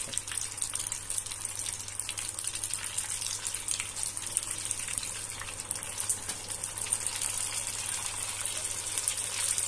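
Flour-coated chicken drumsticks deep-frying in a pot of hot oil: a steady sizzle with fine crackling.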